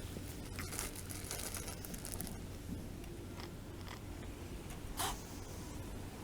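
Kittens crunching and chewing cat food: a patter of small crackly bites, with one louder short burst about five seconds in.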